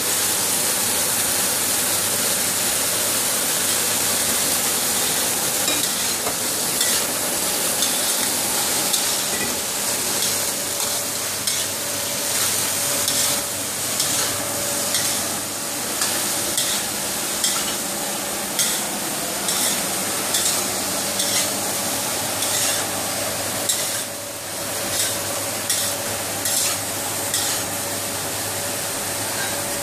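Food sizzling in a stainless steel wok while a wok spatula stirs and tosses it. The spatula scrapes against the wok in a rhythm of about one stroke a second, starting about six seconds in.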